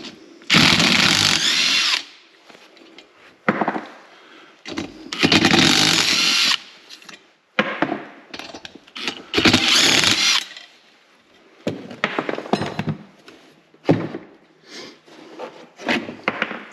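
Handheld power tool run in three short bursts, spinning off the nuts that hold a diesel heater's turret plate, with short knocks and rattles of handling in between.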